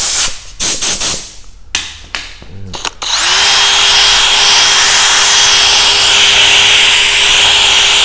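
A few short hissing blasts of air, then about three seconds in a drill spins up and runs at a steady speed with a steady whine, driving a 500-grit sanding disc against a plastic headlight lens.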